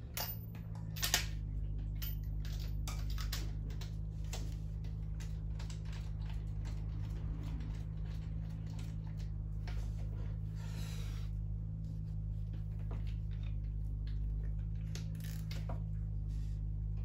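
Spark plugs being fitted into a Harris-built Pinto engine: scattered light metallic clicks and taps of hands and tools at the cylinder head, with a socket ratchet clicking near the end, over a steady low hum.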